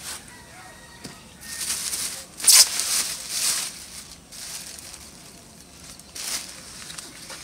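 Thin plastic carrier bags rustling and crinkling as they are handled, in a few bursts, the loudest about two and a half seconds in and another near the end.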